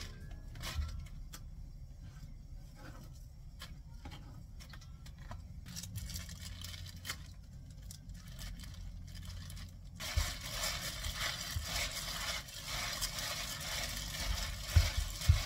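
Napa cabbage leaves being handled in a stainless steel bowl: at first only scattered light clicks and leaf rustles over a steady low hum. About ten seconds in, a dense, continuous scrunching rustle starts as plastic-gloved hands toss and squeeze the leaves with the seasoning paste.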